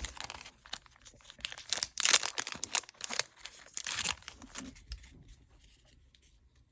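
The foil wrapper of a Pokémon trading-card booster pack being torn open and crinkled: a rapid run of crackling tears that dies away after about four and a half seconds.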